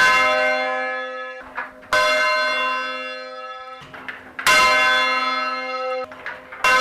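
A full-circle English change-ringing tower bell strikes three times at handstroke, about two and a half seconds apart, at the same pitch each time. Each stroke rings on and then stops abruptly just before the next.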